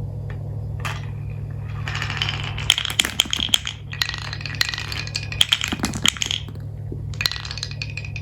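Glass marbles rolling and clattering down a wooden marble run, in bursts of rapid clicks and clinks, over a steady low hum.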